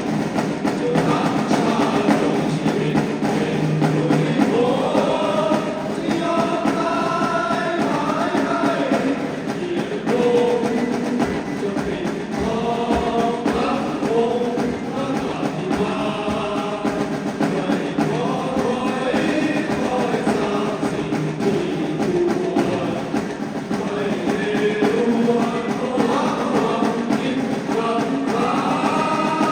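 A choir singing a slow song in long held phrases over instrumental backing.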